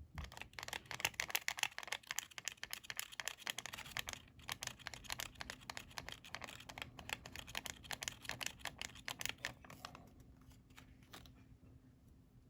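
Coloured origami paper being folded and creased by hand: a dense run of quick crinkling and rustling crackles that thins out to a few separate clicks near the end.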